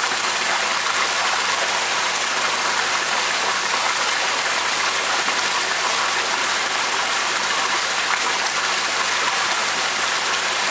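Steady rush of water in a koi holding tank, an even hiss that does not change.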